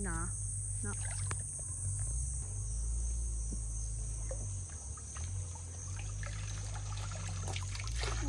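Water splashing and streaming off a mesh crab pot as it is hauled out of shallow mangrove water, loudest near the end, over a steady high-pitched insect chorus.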